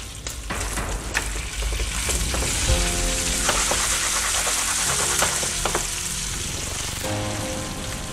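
Lamb shoulder chops sizzling steadily in foaming butter in a frying pan, with a few sharp clicks from the basting spoon on the pan. Faint background music with held notes comes in about three seconds in.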